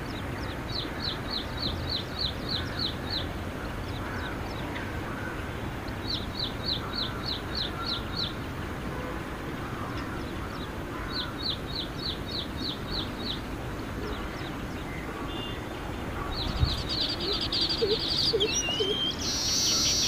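Male baya weaver singing: three runs of about nine quick, evenly spaced chirps a few seconds apart, then a louder, faster chatter near the end that finishes in a wheezy rising note, over a steady background rush.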